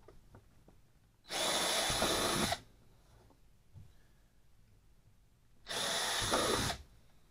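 Cordless drill driving screws into a plastic kayak hatch ring: two steady runs of about a second each, some four seconds apart.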